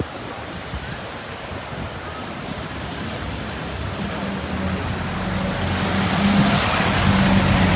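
Street traffic: a motor vehicle approaching, its low engine hum and road noise growing steadily louder against wind noise.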